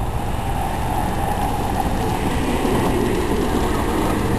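Steady rumble of longboard wheels rolling over pavement at speed.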